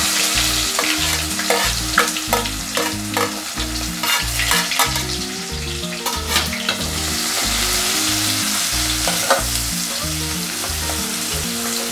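Chopped onion sizzling in hot oil with tempered mustard seeds and cumin in an aluminium pot. A steel spoon clicks and scrapes against the pot as the onion is stirred, mostly in the first seven seconds and once more near the end.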